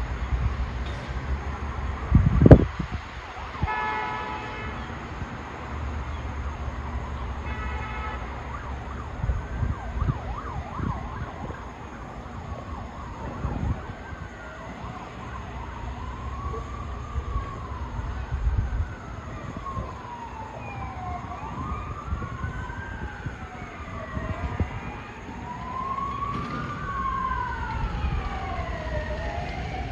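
Emergency vehicle sirens wailing, each tone sweeping slowly up and down, with a second siren joining so that two wails overlap in the latter half. Over a low rumble, a loud thump comes in the first few seconds, then two short horn blasts about four seconds apart.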